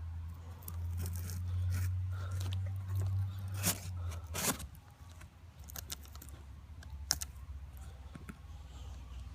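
A knife slitting the packing tape on a cardboard shipping box, with scraping and crackling of tape and cardboard and a few sharp clicks. A low hum runs under the first half and stops about four and a half seconds in.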